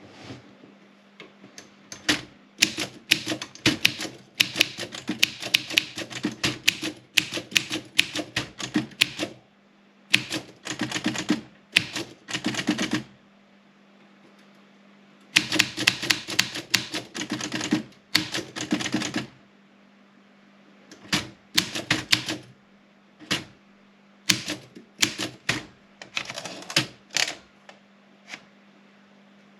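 Olympia SM 7 manual typewriter being typed on: runs of rapid key strikes, each a sharp clack of the typebar hitting the platen, broken by short pauses between bursts.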